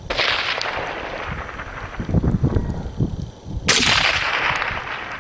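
Two rifle shots about three and a half seconds apart, each followed by a long rolling echo that fades over a couple of seconds. The second shot is the louder and sharper of the two.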